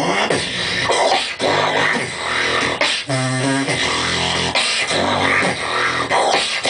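Live beatboxing into a microphone through a PA: a continuous groove of hissing snare-like sounds over deep pitched bass notes, the strongest a held bass tone about three seconds in.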